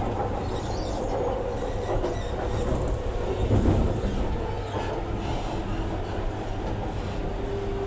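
Hyderabad Metro train running on its track, heard from inside the coach: a steady low rumble of wheels and running gear with a faint steady hum, swelling briefly about three and a half seconds in.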